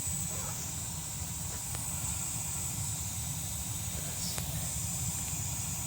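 Utica gas boiler's burner firing with a steady low rumble, over which a steady high hiss runs and stops near the end.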